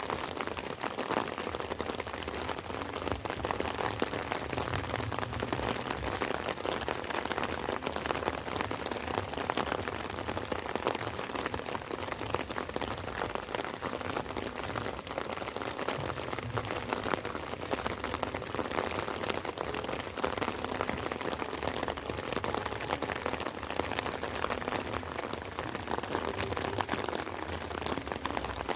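Light rain falling steadily, a dense, even patter of many small drops.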